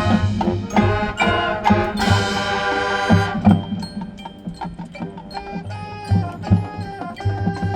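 High school marching band playing its field show: full band with two cymbal crashes in the first three seconds, then dropping to a softer passage of mallet percussion notes over a steady low drum pulse.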